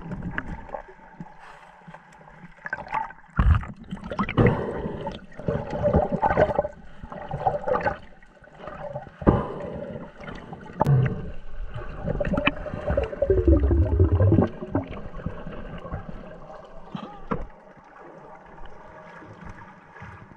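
Muffled underwater sound through an action camera's waterproof housing: water swishing and gurgling as a freediver swims and moves his hands, with irregular knocks and bumps on the housing and a faint steady hum underneath. A louder low rumble swells briefly about two thirds of the way in.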